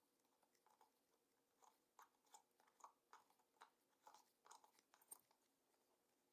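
Near silence, with faint scattered small clicks and taps.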